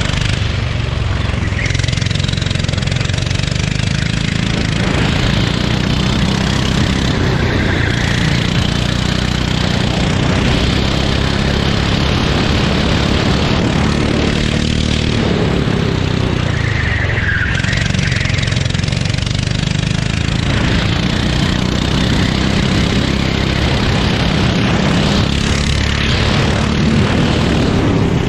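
Go-kart engine running hard on the throttle, its note dropping and climbing again a few times as the kart slows and accelerates.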